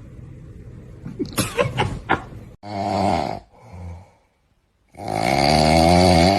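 A dog snoring loudly: a long snore about three seconds in, a short lower grunt, then a longer snore near the end. Before them, a low steady hum with a few sharp clicks.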